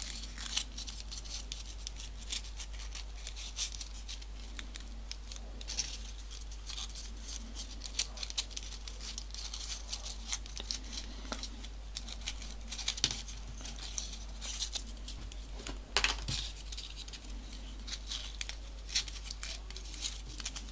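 Folded paper units of modular origami rustling and clicking faintly as they are handled and slotted together, in scattered short crackles throughout.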